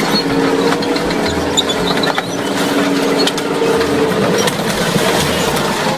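A tank's engine running as the tank climbs onto a minivan and crushes it, with its tracks clanking and the van's metal crunching under the weight. A steady whine runs under dense clattering noise full of small sharp cracks.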